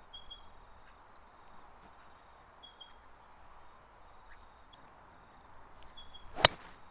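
A golf club strikes a ball once near the end, a single sharp crack. Before it there is only faint outdoor background, with a bird chirping briefly a few times.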